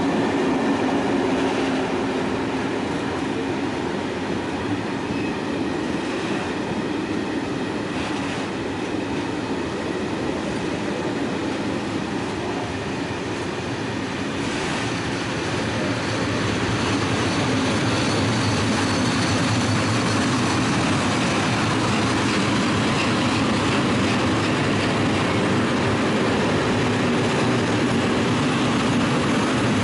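A long freight train of open-top steel wagons passing close by, its wheels rumbling steadily on the rails, a little louder in the second half.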